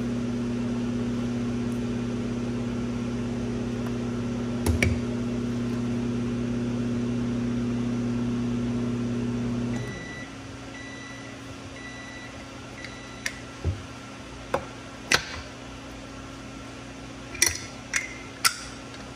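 A steady electric appliance hum stops about ten seconds in and is followed by about four short high beeps. After that come several light metal clicks and taps from the aluminium hand injector being handled.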